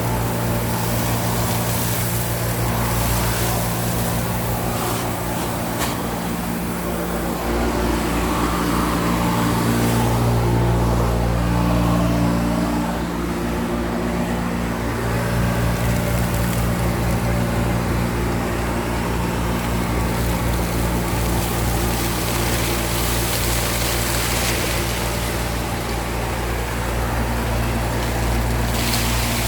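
Homemade industrial cyclone vacuum cleaner running steadily: a motor hum with the rush of air through it, which shifts in tone and grows a little louder for a few seconds around the middle.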